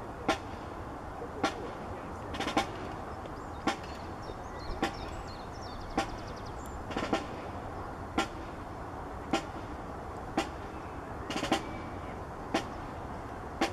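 Slow percussion beat in background music: single sharp drum-like hits about once a second, with a doubled hit every fourth beat, over a steady hiss.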